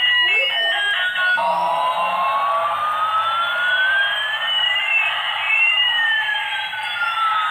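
Battery-powered toy airliner's electronic sound effect from its small speaker: a short beeping tune stops about a second and a half in, then a steady hiss with two tones gliding slowly, one rising and one falling, crossing about five seconds in.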